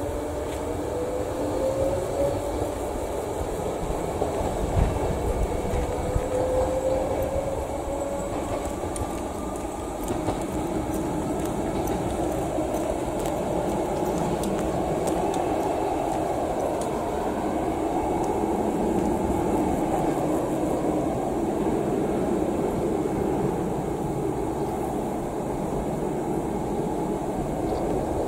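Passenger train running out of sight, a steady rumble with a whine that rises, falls back and rises again several times as it gathers speed.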